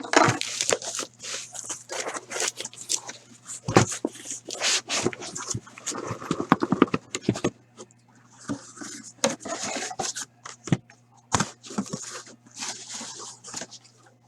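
A cardboard case being opened by hand: packing tape and cardboard ripping, flaps and boxes scraping and rustling, with scattered clicks and knocks and a rapid stuttering rip about midway.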